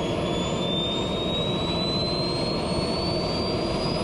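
The small jet turbine engine of an RC land-speed car running at the start line: a steady rushing hiss with a thin whine that climbs slowly in pitch as the turbine speeds up.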